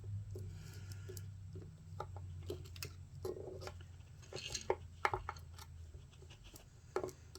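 Faint scattered clicks and light taps of small metal parts being handled as a small bearing is seated in an RC portal axle housing, over a low steady hum.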